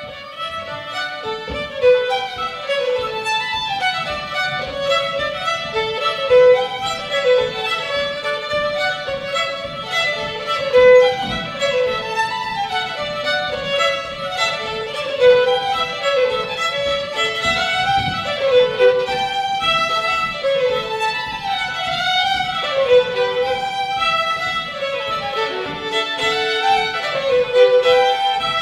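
Two fiddles playing a fast French-Canadian reel together, a quick, steady run of bowed notes.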